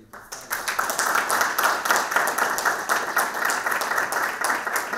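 Small audience applauding: a dense round of many hands clapping that starts at once and keeps going.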